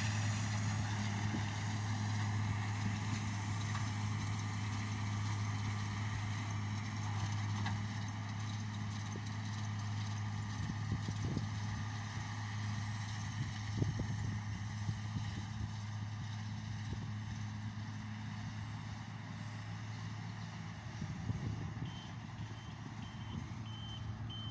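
New Holland T7.200 tractor engine running steadily at working revs, pulling a McHale Fusion 2 baler-wrapper as it bales silage, with the odd knock from the machinery. A series of short, high beeps sounds near the end.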